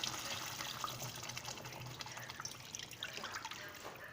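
Frying tomato sauce in a pot crackling and bubbling with water just added to it, the sizzle slowly dying down toward the end.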